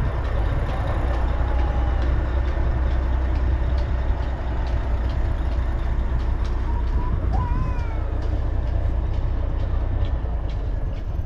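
Mack R-series truck's Maxidyne V8 diesel idling steadily with a deep, even rumble.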